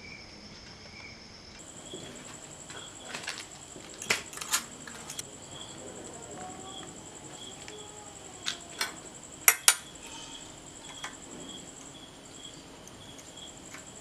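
Insects chirping steadily in the background, a high unbroken trill with a lower chirp pulsing about twice a second. Over it come several sharp clicks in close pairs, the loudest pair a little past the middle.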